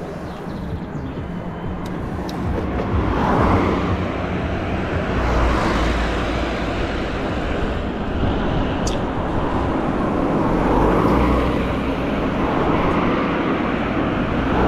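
Wind rushing over the microphone and tyre noise from an electric mountain bike rolling along an asphalt road, with passing car traffic. The noise swells louder twice, about three seconds in and again about ten seconds in.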